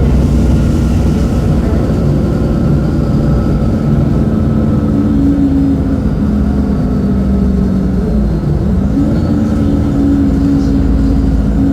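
Mercedes-Benz OM-926LA inline-six diesel engine of an O-500U city bus running under load, a steady heavy rumble with an engine tone that dips briefly a little past eight seconds and then climbs again.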